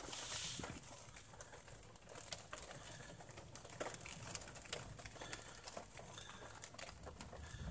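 Low rumble of distant thunder, with scattered raindrops ticking on the car.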